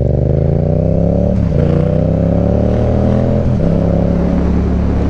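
Yamaha MT-07 parallel-twin engine accelerating under way, rising in pitch and dropping twice, about a second and a half in and again past three and a half seconds, as it is shifted up through the gears, then holding a steady speed.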